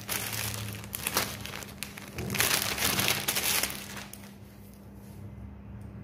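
Plastic packaging crinkling as a coiled fiber-optic patch cord is unwrapped and handled, in two stretches of about two and one and a half seconds, then quieter handling noise over a faint steady hum.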